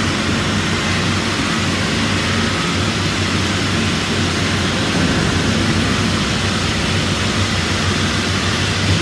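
A heavy engine running steadily: a constant low hum under a broad rushing noise that does not change in pitch.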